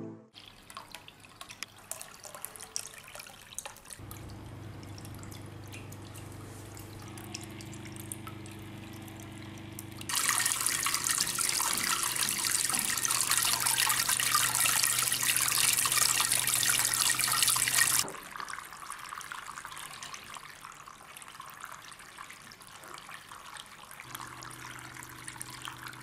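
Small tabletop fountains: water pouring from bamboo spouts and trickling over stones into a basin, in several short takes, loudest and splashiest in the middle stretch.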